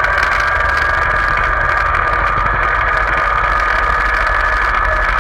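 Tractor engine running steadily while towing a trailer along a road: a constant low rumble with a steady high whine over it.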